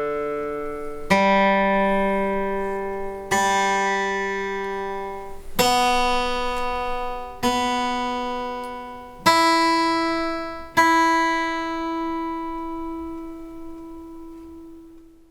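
Collings dreadnought acoustic guitar fitted with the Droplet Sound System: single chords strummed one at a time, about every two seconds, six in all, each left to ring out. The last chord fades slowly away to nothing.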